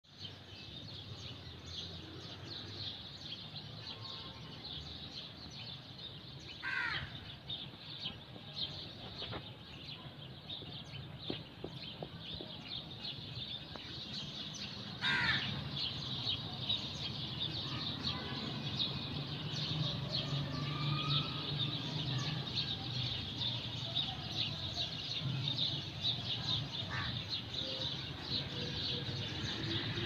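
Many birds chirping in the trees, a dense steady chatter, with two louder calls that slide downward in pitch, about 7 seconds and 15 seconds in, over a low steady background rumble.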